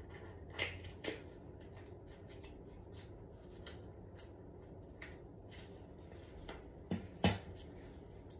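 Small clicks and light rustling as a lip-liner pencil's plastic and cardboard packaging is handled and opened by hand. Two sharper clicks come near the end, the second of them the loudest sound.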